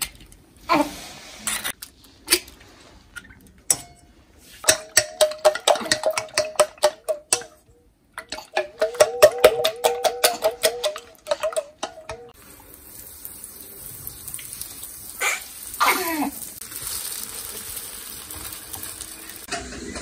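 Eggs tapped and cracked into a stainless steel bowl, then beaten fast with wooden chopsticks: rapid clicking strikes with the metal bowl ringing, in two runs. From about twelve seconds in, a steady sizzle of egg-dipped bread frying in a pan.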